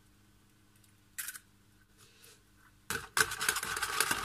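A raw egg being beaten with a whisk in a plastic container: rapid clicking and scraping of the whisk against the container that starts about three seconds in. Before that, one short clatter about a second in.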